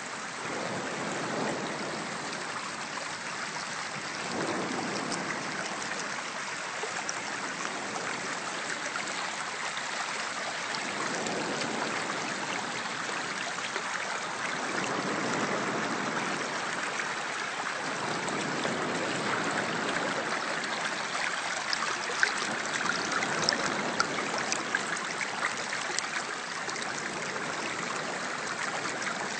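Shallow mountain stream rushing steadily over pebbles, with a few sharp ticks near the end.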